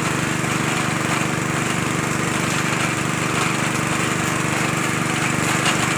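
Small engine of a machine well-drilling rig running steadily at a constant speed while it drives the drill into the borehole.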